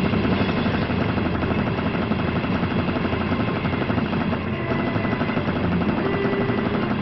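Cartoon chase sound effects: a fast, even mechanical rattle from the speeding locomotive and the crooks' car running alongside it.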